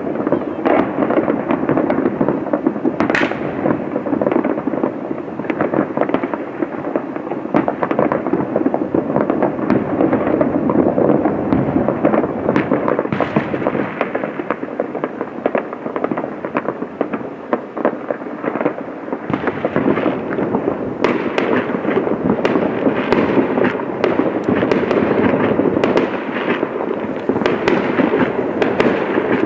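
Fireworks going off thick and fast: a continuous crackle of many overlapping bangs and pops, with no pause.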